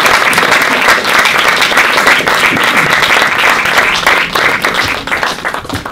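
Audience applauding: sustained clapping from a room full of people that thins out near the end.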